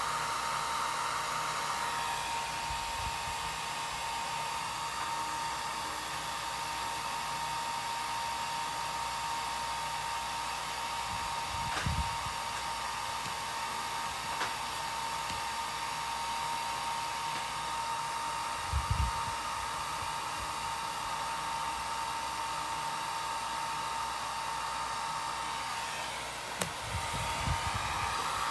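Electric hot-air dryer running steadily, a constant rush of air with a steady whine. Its air noise changes tone about two seconds in and again near the end, and there are a few soft knocks.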